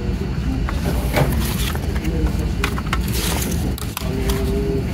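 Paper rustling and soft taps as a CD booklet is leafed through and laid down on an open plastic jewel case, over a steady low background rumble.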